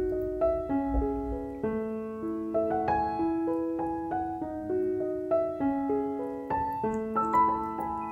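Background piano music: a slow melody of single notes over held lower notes.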